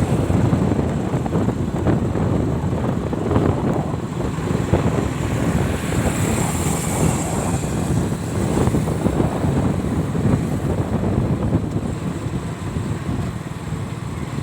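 Wind buffeting the microphone, a steady low rumbling noise with a brief rise in hiss midway.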